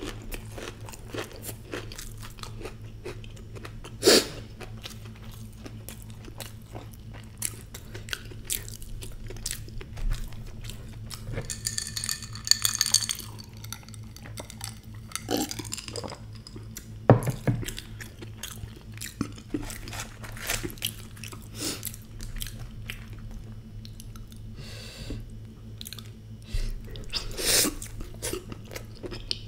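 Close-miked eating sounds: chewing, lip smacking and crunchy bites of puri and aloo, with gulps of mango juice swallowed about halfway through. A few louder sharp clicks stand out over a steady low hum.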